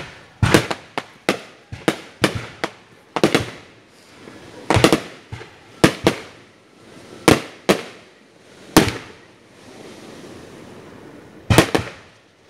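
Fireworks display: a run of sharp bangs at uneven intervals, some in quick pairs, each trailing off briefly. A lull of about two and a half seconds comes before two more bangs near the end.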